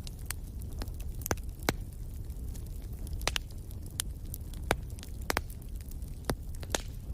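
Wood fire burning: a steady low rumble of flame with irregular sharp crackles and pops from the burning logs, several louder pops scattered through.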